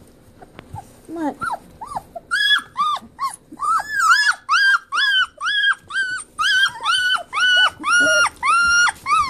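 Three-week-old Goldendoodle puppy whining in short high-pitched cries, each rising and falling in pitch. A few come at first, then from about two seconds in they follow in a steady run of about two a second.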